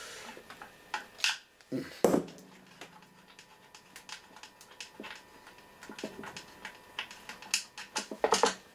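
Scattered light clicks and metal knocks of hand tools and parts as the screws holding a heavy cast-aluminium control box onto a military radio are undone, with one louder knock about two seconds in that rings briefly and a run of clicks near the end.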